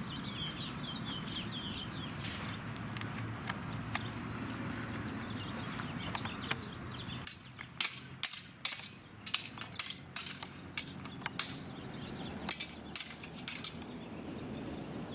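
Steel training longswords clashing in a sparring exchange: a few scattered blade strikes early on, then a rapid flurry of sharp metallic clacks starting about halfway through and lasting several seconds.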